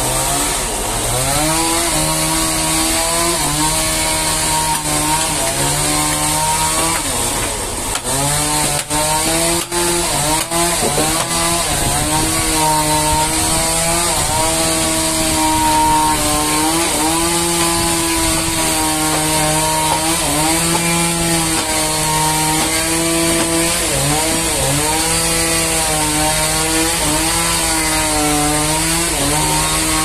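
Sawmill saw cutting through a large trembesi (rain tree) log, running steadily under load. Its pitch sags and recovers again and again as the blade bites into the wood. A few brief clicks come about a third of the way in.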